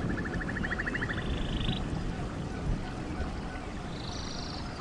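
Looped jungle ambience: short trills of rapid, evenly pulsed animal calls, one at the start, a higher one about a second and a half in and another near the end, with a few brief rising chirps over a steady low rumble.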